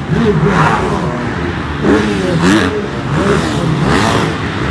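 Several dirt bike engines revving, their pitches rising and falling and overlapping as the bikes go through the gears.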